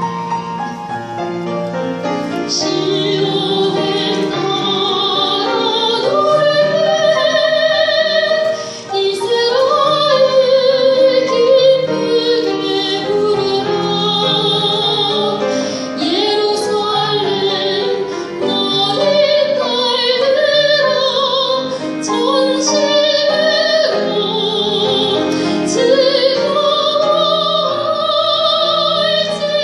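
Coloratura soprano singing a sacred song with a wide vibrato on long, high notes, accompanied by grand piano.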